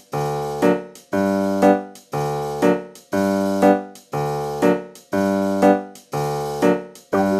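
Background music: a keyboard playing a repeating chord pattern, about one chord a second, each struck sharply and then fading.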